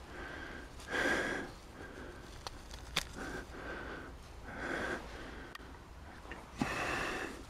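A person sniffing and breathing through the nose close to the microphone, three breathy sniffs a couple of seconds apart, with a sharp click about three seconds in.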